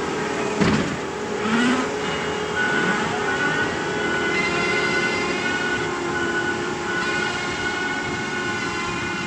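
Excavator's diesel engine and hydraulics running steadily under load, with a steady whine. There is a sharp clank a little over half a second in, and a short rising squeal about a second and a half in.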